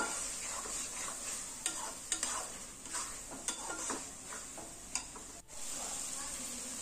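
Thick spice paste with fermented dried fish sizzling in oil in a metal karai while a metal spatula stirs and scrapes it, clicking against the pan every second or so. The masala is being fried down until the oil comes up to the top.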